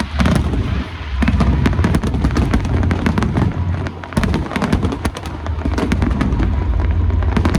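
Aerial fireworks going off in a dense barrage: rapid crackling reports over a continuous low rumble of booms, starting suddenly at the outset.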